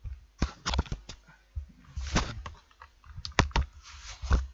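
Over-ear headphones being taken off and put back on, handled close to the microphone: irregular clicks, knocks and rustles of the plastic earcups and headband.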